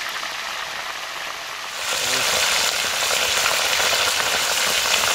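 Fish pieces deep-frying in hot oil in a pot over a wood fire: a steady sizzle that grows louder about two seconds in.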